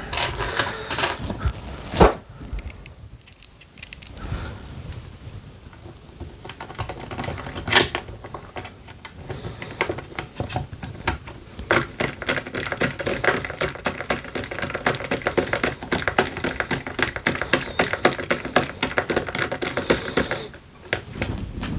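Quick small clicks and taps of hand work on an RC car as a cover is fitted back on and fastened, with a sharper knock about two seconds in and another about eight seconds in. The clicking runs thick and fast through the middle and latter part, then stops shortly before the end.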